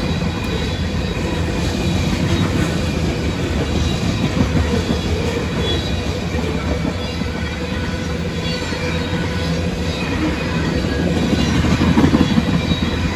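Loaded freight cars, covered hoppers and boxcars, rolling steadily past close by: a continuous rumble and clatter of steel wheels on rail, growing a little louder near the end.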